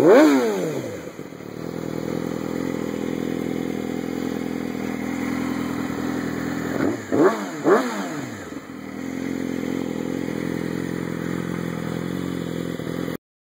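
2007 Yamaha YZF-R6's inline-four through a full Arrow exhaust system, idling steadily. There is a sharp throttle blip right at the start and two quick blips about seven seconds in, the revs dropping straight back to idle each time. The sound cuts off suddenly near the end.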